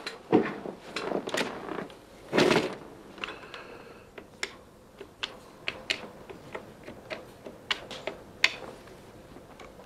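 A corded desk telephone's handset is picked up with rustling and clunks, a brief tone sounds, then a run of sharp single clicks, about two to three a second, as a number is dialled.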